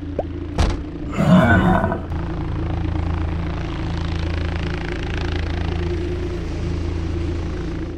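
Cartoon sound effects: a few short knocks, a brief roar about a second in, then a steady low rumbling drone like a running vehicle engine.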